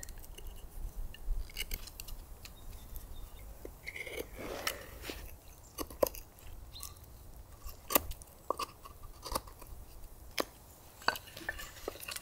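Knife blade carving into a split log, gouging out a small air-inlet hole for a log rocket stove: irregular sharp clicks and cracks as chips of wood break away, with some softer scraping.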